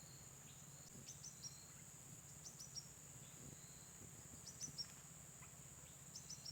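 A small bird gives short, high, falling chirps in quick groups of three, about four groups over a few seconds. Beneath them runs a faint, steady, high insect drone.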